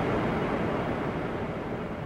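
A dense rushing wash of noise from an electroacoustic sound composition, with no clear pitch or beat, slowly fading.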